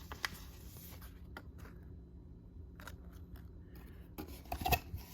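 Hands handling card packaging: scattered light clicks and rubs, then a quick cluster of louder clicks and rustling near the end.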